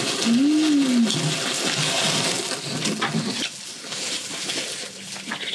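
Meat sizzling on a barbecue grill, a steady hiss that eases after about three seconds, with a short rising-and-falling hum near the start and a few light clicks.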